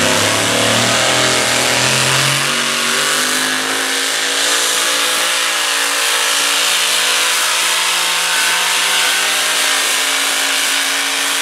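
The naturally aspirated engine of a super modified four-wheel-drive 1965 Chevy pickup running flat out under the load of a pulling sled. Its pitch settles about two seconds in and then holds steady at high revs.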